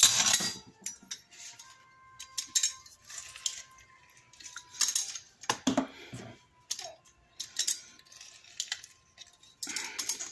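Scattered clinks and knocks of metal kitchen utensils against a tiled counter and a stainless steel bowl, as a chef's knife is put down and a hand-held metal lime squeezer is picked up and brought to the bowl.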